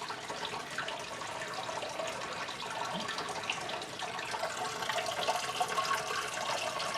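Aquarium filter pouring water continuously into the fish tank: a steady splashing trickle.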